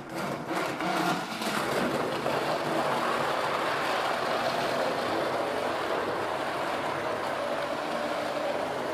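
Handheld stick blender running steadily, its blades churning soaked almonds, dates and water in a plastic jug to make almond milk.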